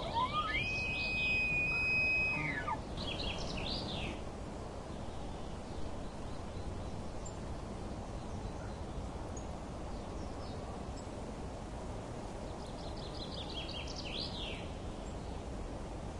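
Birds chirping in short bursts over a steady outdoor background noise, with one long high whistled note near the start that rises, holds and falls away.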